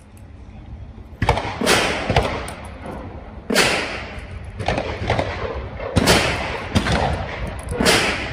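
A string of about nine loud gunshots at irregular intervals, each followed by a short echoing tail.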